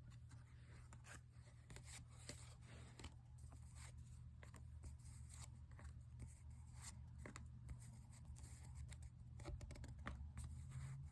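Faint sliding, rustling and small clicks of baseball trading cards being handled and flipped through one by one, over a low steady hum.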